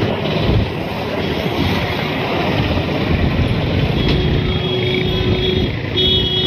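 Wind buffeting the microphone over steady road-traffic noise on a bridge. A vehicle horn sounds about four seconds in, held for over a second, then in a few short toots near the end.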